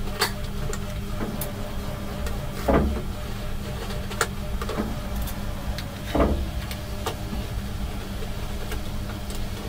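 Faint clicks and scrapes of an Allen key turning out the small bolts that hold a 3D printer's mainboard, with two duller handling knocks about 3 and 6 seconds in, over a steady low hum.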